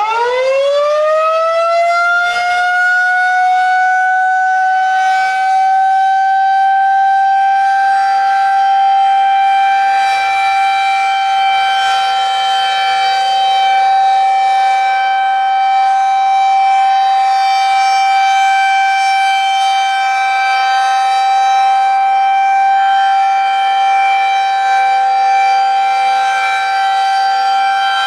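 Federal Signal 2001-130 outdoor warning siren sounding its steady one-minute alert on a weekly test. It finishes winding up to full pitch in the first couple of seconds, then holds one steady, loud tone. This unit is a bit higher pitched and louder than an average 2001.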